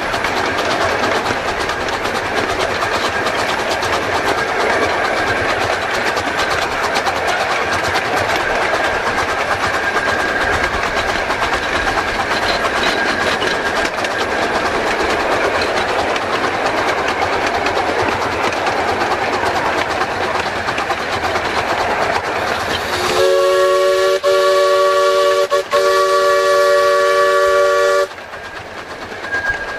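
15-inch-gauge live-steam locomotive running along the track with a steady rolling rush of wheels on rail. About 23 seconds in, its steam whistle sounds a chord of several notes at once for about five seconds, broken briefly in the middle, then stops.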